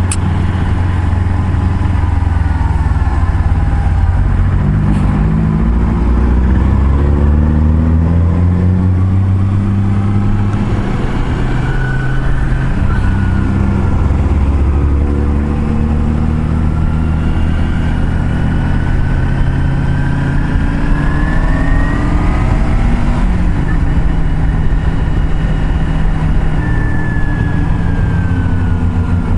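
Motorcycle engine running on the road, its pitch climbing and dropping in steps as it accelerates and shifts gears, over a steady rush of wind and road noise.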